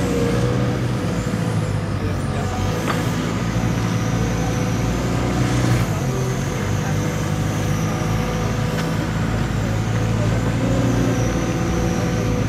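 Diesel engine of an Atlas wheeled excavator running steadily while it works its arm, with a sharp clank about three seconds in.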